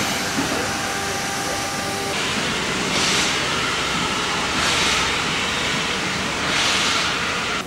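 Hedjaz Railway steam locomotive working slowly. A steady hiss of steam for the first two seconds, then three slow exhaust chuffs about two seconds apart.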